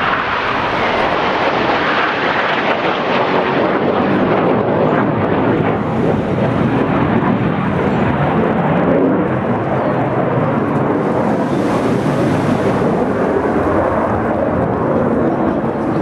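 Jet noise from a formation of BAE Hawk T1 jets flying a display overhead: a continuous loud rumble, brighter in the first few seconds and deeper after that.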